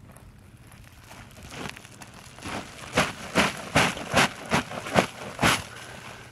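A woven sack being shaken out upside down, emptying dried brush onto the ground: a run of sharp rustling shakes, two to three a second. They start softly about a second and a half in and grow loud in the second half, about seven strong shakes, then stop.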